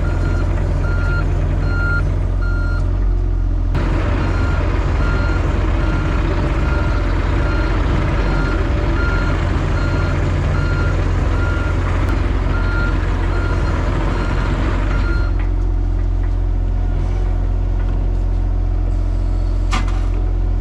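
John Deere 35G mini excavator's diesel engine running steadily, with its travel alarm beeping in a quick regular series, about one and a half beeps a second. The beeping breaks off briefly about three seconds in and stops for good about fifteen seconds in, while the engine keeps running.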